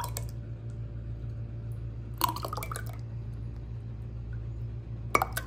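Milk sharbat poured in a stream into a glass: liquid splashing and dripping, with short glassy sounds about two seconds in and again near the end, over a steady low hum.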